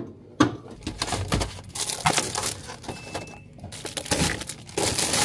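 Plastic fruit punnets and food packaging rustling and crinkling as they are handled and set on fridge shelves, in irregular bursts.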